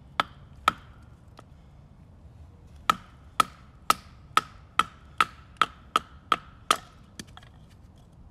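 Wooden baton striking the spine of a large bushcraft knife, the Wenger Wolverine, each sharp knock followed by a brief metallic ring of the blade. Two strikes, a pause of about two seconds, then ten steady strikes at about two a second, and a few fainter taps near the end.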